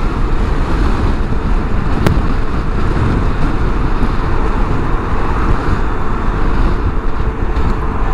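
Wind buffeting the microphone over the steady drone of a Vespa scooter's engine and tyres at expressway speed.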